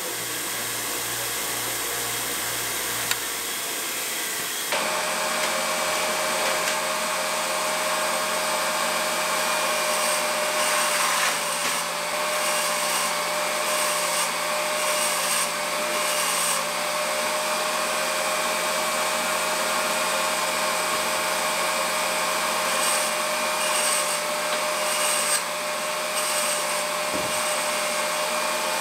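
A bench grinder running, then an electric valve grinding machine running steadily, its stone grinding the stem tips of Model T engine valves in a few brief, harsher spells of stone on steel.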